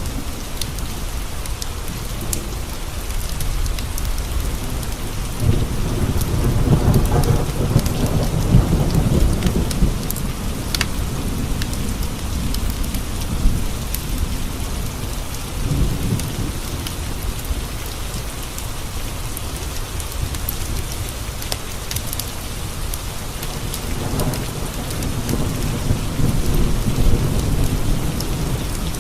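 Steady rain falling on window panes, with scattered light ticks, while thunder rolls in twice: a long deep rumble about five seconds in and another near the end.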